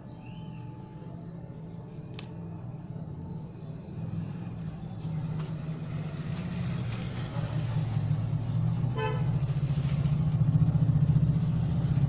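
A low engine drone that grows steadily louder, with a short horn-like toot about nine seconds in.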